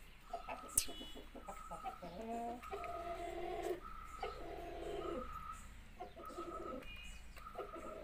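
Chickens clucking, with call after call about a second long, over a higher steady note that repeats roughly once a second. A single sharp click sounds about a second in.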